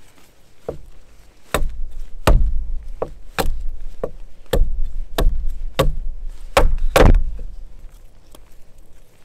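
Firewood being chopped or split: about a dozen sharp, irregularly spaced strikes into wood, the hardest one near the end.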